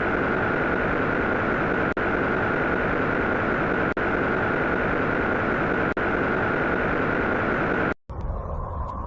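A sound effect of steady rushing noise with a high steady whine, repeated in two-second loops with a brief dropout between repeats. About eight seconds in it cuts to a different, lower hum.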